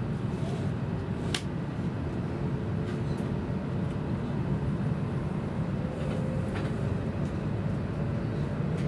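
Running noise heard from inside a W7 series Shinkansen passenger car: a steady low rumble of the wheels on the rails. A faint steady whine comes in during the second half, and there is one sharp click about a second and a half in.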